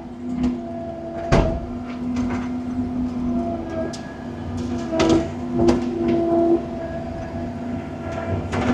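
Diesel construction machine running under load while it works a brush pile, with a steady drone and a whine that comes and goes. About five sharp knocks and clanks of wood and steel are spread through it.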